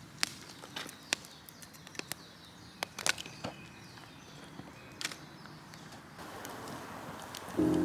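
Footsteps on rough outdoor ground: irregular crunching steps that thin out after about five seconds. Music comes in near the end.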